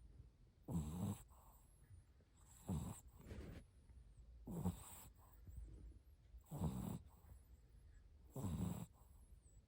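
A Shih Tzu puppy snoring in its sleep: five rattling snoring breaths, about one every two seconds.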